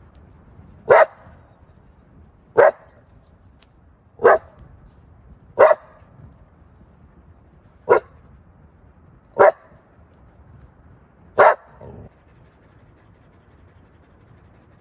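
A dog barking seven times, single short barks about one and a half to two seconds apart.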